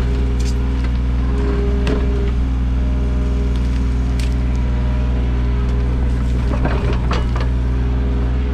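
Kubota U55-4 mini excavator's diesel engine running steadily while digging, with a few scattered knocks and clatters from the bucket and arm working.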